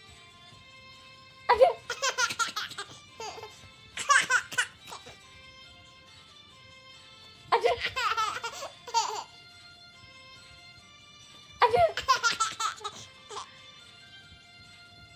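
A baby laughing in four bursts a few seconds apart, over quiet background music.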